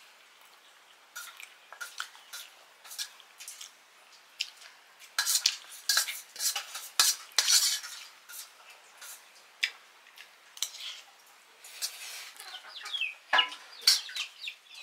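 Metal spoons clinking and scraping against steel plates and bowls during a meal: many irregular sharp clinks, busiest in the middle and again near the end.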